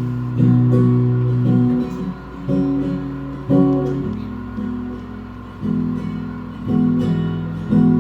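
Acoustic guitar strumming chords, each left to ring, with a new strum about every second: the instrumental introduction of a song before the singing begins.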